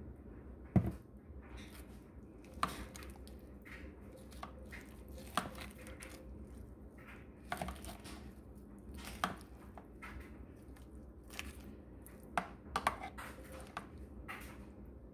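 A metal spoon tossing a dressed lettuce salad in a bowl: soft rustling and squishing, with scattered clicks and knocks of the spoon against the bowl every second or two, the loudest about a second in.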